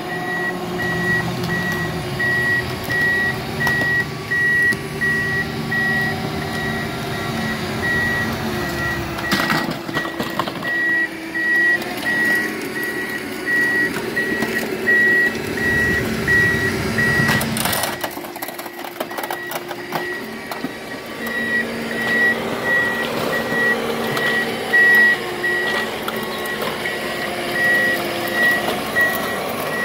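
Heavy demolition machine's back-up alarm beeping over and over at one high pitch while its engine runs, the engine's pitch rising and falling as it works. Two sharp knocks, about 9 and 18 seconds in, from debris being moved.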